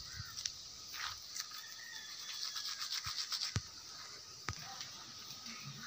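Manual toothbrush scrubbing teeth in quick back-and-forth strokes, densest around the middle, with two sharp clicks shortly after.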